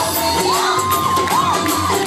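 A crowd of guests cheering and whooping over loud dance music, with many short rising-and-falling whoops.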